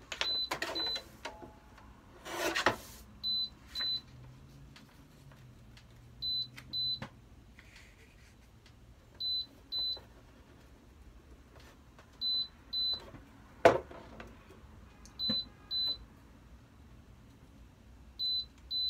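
Heat press machine beeping, two short high beeps about every three seconds, its signal that it has reached temperature. Between the beeps come rustles of paper and heat tape being torn and pressed around a sublimation mug, with a louder tear a couple of seconds in and a sharp snap about two-thirds of the way through.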